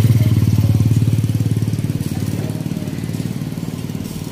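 Small motorcycle engine running, with a fast, even pulsing beat; it is loudest in the first second and eases off a little after that.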